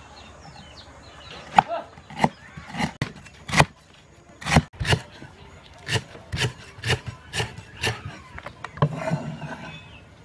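Meat cleaver chopping lemongrass on a thick round wooden chopping block: a series of sharp knocks, about two a second, with a few pauses.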